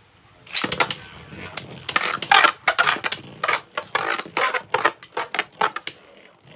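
Plastic Beyblade Burst spinning tops and launchers clicking and clattering in a quick, irregular run of sharp clicks and knocks, plastic on plastic.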